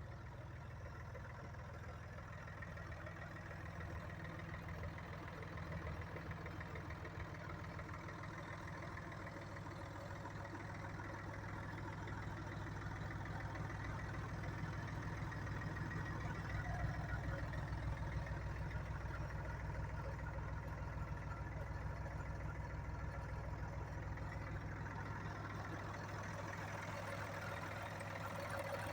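Landini Blizzard 50 tractor's three-cylinder Perkins diesel engine idling steadily, growing a little louder partway through.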